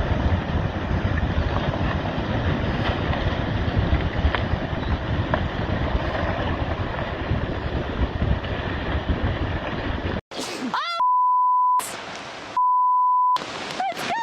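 Strong wind buffeting the microphone with rough water noise underneath. About ten seconds in it cuts off, and two steady beeps like a censor bleep sound, a second apart.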